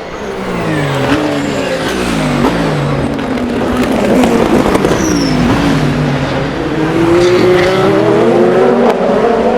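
Race car engines braking into a corner, the note falling in quick downshift steps, then accelerating hard out of it with the pitch rising steadily; more than one car is heard at once.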